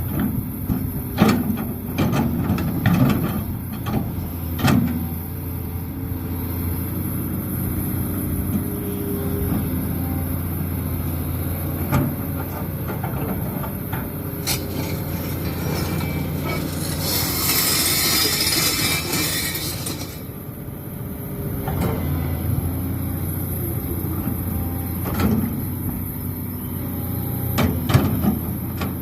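Excavator diesel engine running steadily, with sharp knocks and clanks several times in the first few seconds and again near the end. There is a loud hiss for about three seconds midway.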